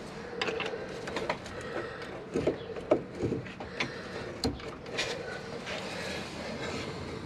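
Screwdriver working against a rusty van rear brake caliper: irregular metallic clicks, taps and scrapes, unevenly spaced, over a steady faint hum.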